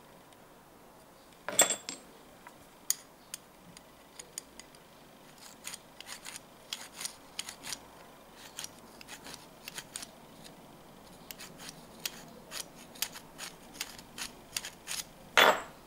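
Light metallic clicks and scrapes of a homemade airgun's copper-sleeved blowforward bolt being slid by hand back and forth over its aluminium barrel, with a sharper clack about a second and a half in and another near the end.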